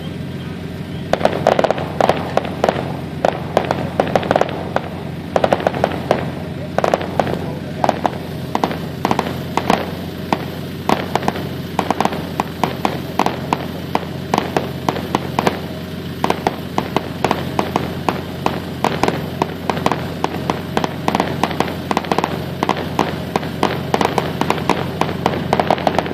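Fireworks going off in quick succession: a rapid, almost unbroken run of sharp bangs and crackles, starting about a second in, over a steady low hum.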